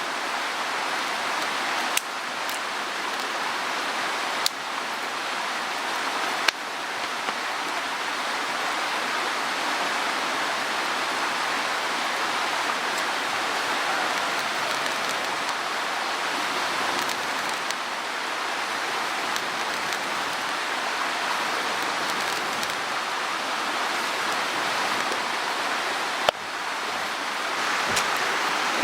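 Mountain stream rushing with a steady, even hiss, broken by a few sharp clicks.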